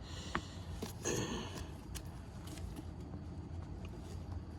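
Light handling noises from working on a scooter wheel and tyre: a few soft clicks and a brief rub about a second in, over a low steady hum.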